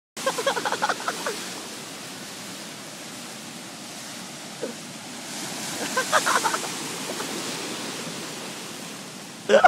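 Rough surf of a typhoon-driven sea: a steady roar of waves and wind that swells around six seconds in, with short bursts of a person's voice about a second in and again around six seconds.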